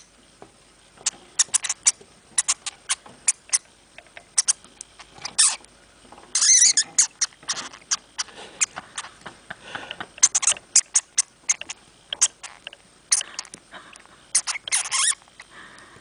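Hamster making a rapid, irregular run of short sharp clicks and scratches, with a longer scrape about six seconds in and a dense flurry near the end.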